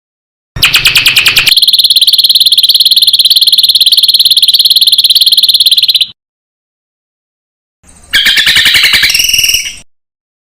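Recorded songbird song: a loud, high, fast-pulsing trill held for about five seconds, then after a silent gap a shorter, more varied trilling phrase at several pitches.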